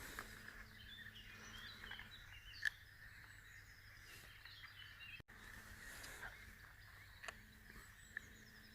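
Faint birdsong: scattered small birds chirping, with a few soft ticks, the clearest about a third of the way in.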